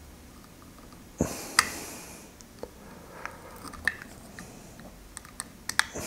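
Scalpel blade cutting into a thick cable's outer sleeving: a knock about a second in that opens into a short scraping rasp with one sharp click, then scattered light clicks and ticks, several in quick succession near the end.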